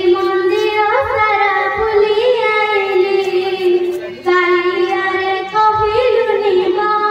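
A young girl singing solo into a microphone over a PA system, in long held notes that glide between pitches, with a short break for breath about four seconds in.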